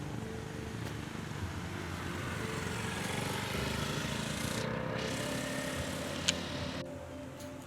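Street traffic noise: a passing vehicle swells toward the middle, with a sharp click about six seconds in and an abrupt drop soon after.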